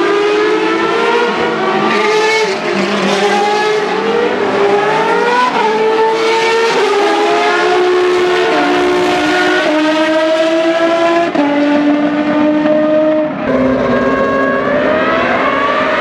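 Several single-seater racing car engines at high revs, overlapping. Their pitch climbs and drops back in steps as they change up through the gears.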